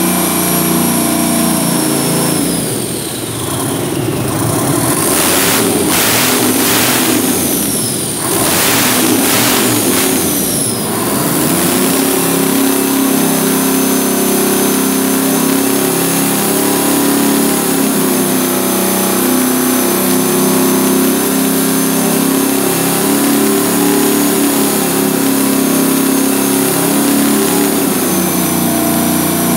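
Detroit Diesel 12V71TA, a turbocharged two-stroke V12 diesel, running on an engine stand after startup and being revved. Its speed falls in the first few seconds, then comes several short bursts of revving. From about eleven seconds it holds a steady higher speed with a high whine that follows engine speed, easing off near the end.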